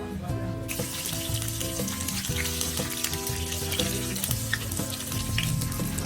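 Food sizzling in hot oil as it fries, the sizzle starting about a second in and carrying on steadily.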